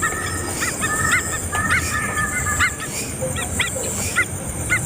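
Birds calling: a string of short chirping calls, a few a second, with a thin held note under the first part.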